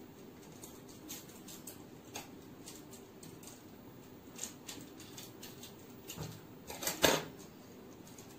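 Plastic toffee wrapper being unwrapped by hand: scattered small crinkles and ticks, with one louder knock on the table near the end.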